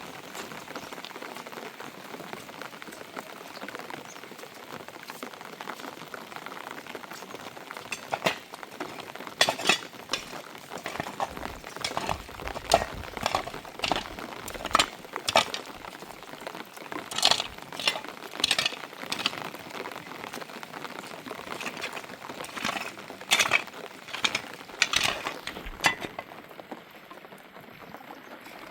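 Steady hiss of rain with irregular clinks and knocks, like utensils or dishes handled, starting about eight seconds in.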